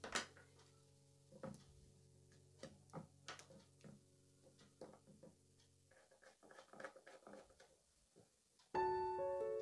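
Small irregular clicks and taps of a screwdriver driving screws into a hard disk's circuit board, over faint background music. Louder piano music comes in near the end.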